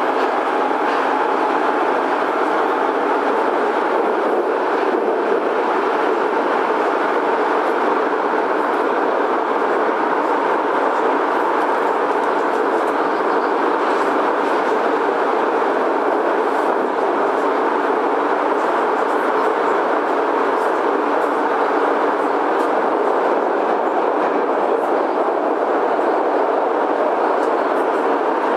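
Prague Metro M1 train running at a steady speed, a continuous even running noise from wheels and rails with faint clicks over it.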